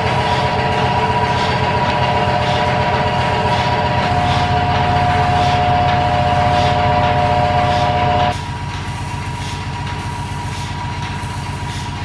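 Milking-machine vacuum pump running steadily during machine milking: a low mechanical hum with steady whine tones and a faint regular ticking. About eight seconds in, the sound drops a little and one of the whine tones stops.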